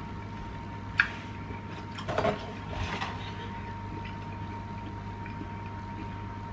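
Cardboard food packaging picked up and handled: a sharp click about a second in, then brief soft rustling around two to three seconds in, over a steady low electrical hum.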